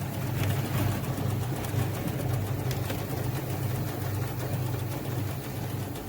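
Motor-driven apple mill machinery running steadily, a low hum with a fast, even rattle.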